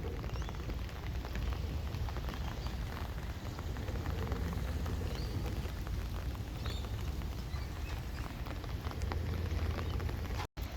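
Rain pattering, with scattered small drop ticks over a steady low rumble; the sound cuts out for a split second near the end.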